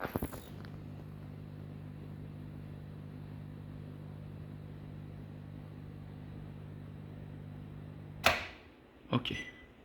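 A 2.45 GHz magnetron microwave system running, a steady low mains buzz ("zzz") from its high-voltage supply. It cuts off with a thump about eight seconds in, as the power is switched off.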